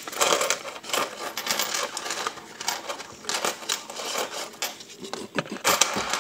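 Nickels clinking against one another and a granite countertop as hands tip them out of a coin roll and spread them, a dense run of quick, irregular metallic clicks.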